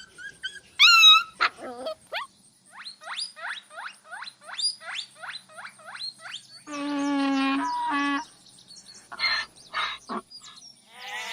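Animal calls: a quick run of short, high, rising squeaks, about three a second. Then two longer pitched cries about seven and eight seconds in, and a few more short calls near the end.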